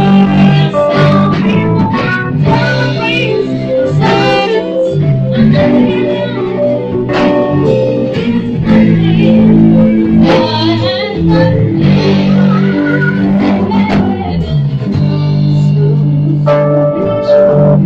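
Live band playing a jazzy tune together: saxophone melody over electric bass and a Yamaha electric keyboard. Near the end the keyboard holds a long organ-like chord.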